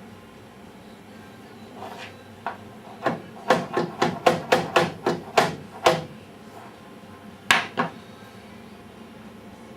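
Hammer or mallet tapping on the tenon jig's plate: a run of about a dozen sharp knocks at roughly three a second, then two more taps near the end, as the plate is nudged square.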